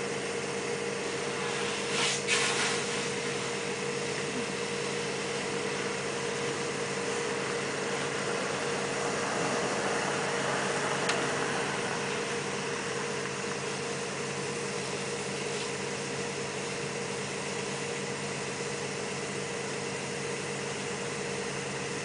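Machinery running with a steady, even hum, with a short clatter about two seconds in.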